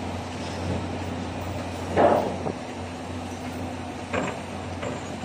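Construction-site machinery humming steadily, with a short loud clatter about two seconds in and a few lighter knocks near the end.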